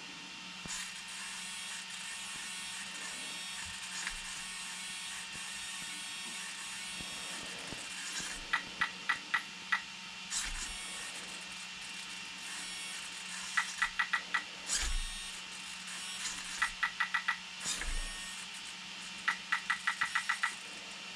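RC transmitter beeping as its plus and minus buttons are pressed to step the steering end-point value, in four quick runs of five to eight short beeps. A steady low hum runs underneath, with a few soft thumps.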